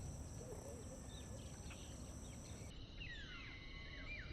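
Faint outdoor ambience: steady high insect trilling with bird calls. A few sliding whistled notes come in the second half.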